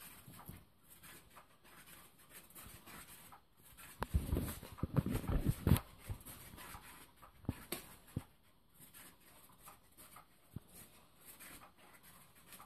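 Soft thumps and fabric rustling from a cat batting at a spinning fabric-covered cat toy, loudest for about two seconds near the middle, followed by a few scattered sharp clicks.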